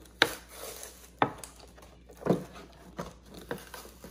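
Cardboard and clear plastic packaging of a Barbie dentist playset box being pried open by hand: a handful of separate sharp clicks and taps, with light handling noise in between.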